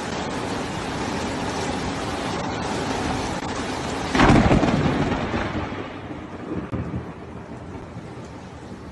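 Rain falling with a steady hiss during a thunderstorm; about four seconds in a loud thunderclap breaks and rumbles away over a couple of seconds, and the rain goes on more quietly afterwards.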